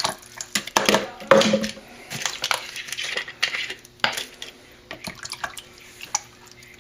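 Scattered clinks and knocks of a small drip coffee maker's glass carafe and plastic parts being handled while it is filled with water, with a faint splash or two.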